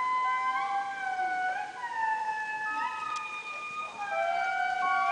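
Indris singing in chorus: several long, held, howling notes overlap, each bending upward at its end, and some notes slide downward later on.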